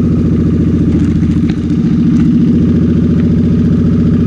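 Cruiser motorcycle's engine idling with a steady, pulsing beat, dipping briefly about a second and a half in and then running slightly louder. The engine has new timing chains and a new clutch.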